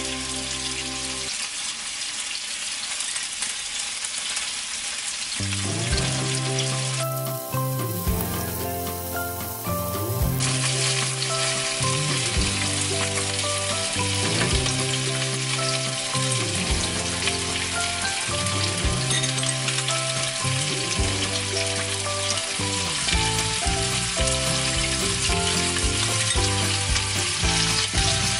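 Chicken drumsticks sizzling steadily as they fry in oil in a nonstick frying pan. Background music comes in after about five seconds.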